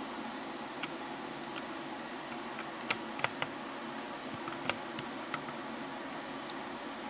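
Steady whir of a running inverter TIG welder's cooling fan (Longevity TigWeld 160SX), with a scattered handful of short, light ticks, most of them between about three and five seconds in.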